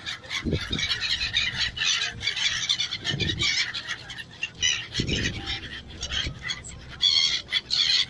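A flock of gulls calling, many short overlapping squawks that grow busiest about seven seconds in, with a few brief low thumps.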